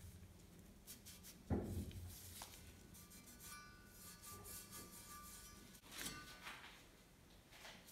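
Faint handling of a metal trowel: a low thump about one and a half seconds in, then a soft scrape or clatter near six seconds in. A faint steady tone is heard in between.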